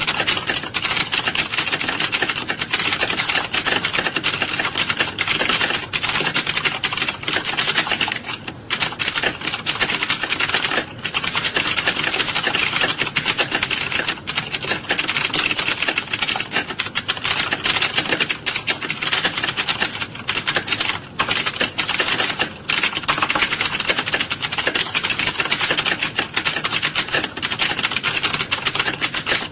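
A roomful of keyboards being typed on at once in a typing class: a dense, continuous clatter of key clicks with a few brief lulls.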